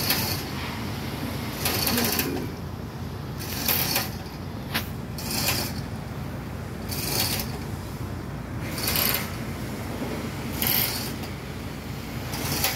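A manual chain hoist on a tripod over a borehole, its chain rattling and mechanism clicking in short bursts about every two seconds as the hand chain is pulled to work the pipe column in the well. A steady low rumble runs underneath.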